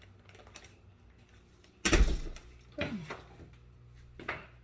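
A sudden loud bump about two seconds in, followed by two softer knocks or handling sounds, the first of them with a short falling creak-like pitch.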